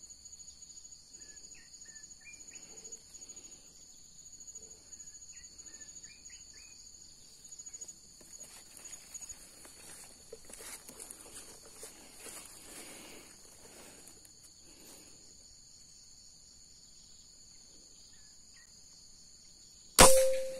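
A single sharp air-rifle shot near the end, followed by a brief ringing tone. Before it, a steady high drone of insects with faint rustling and a few short chirps.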